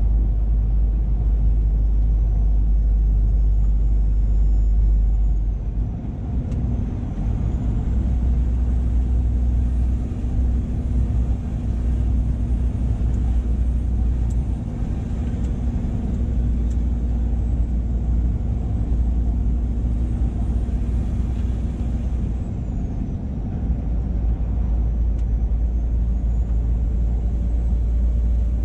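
A 2007 Scania R480 tractor unit driving under load, its engine a deep steady drone over road rumble. The drone dips briefly a few times, and a faint high whine rises and falls.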